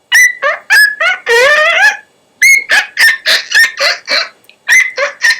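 A person whistling a made-up cartoony tune with the throat: a run of short, squeaky pitched notes, a few held longer with a wavering pitch, with a brief break about two seconds in.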